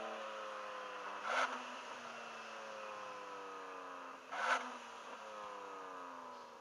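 BMW M2 Competition's twin-turbo straight-six slowing down: engine note falls steadily, with two downshifts about a second and four seconds in, each a short sharp burst as the revs jump back up.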